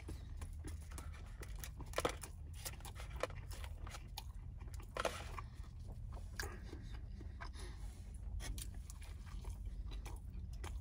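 A person chewing a mouthful of cheeseburger, with irregular mouth clicks and smacks, two louder ones about two and five seconds in, over a low steady hum.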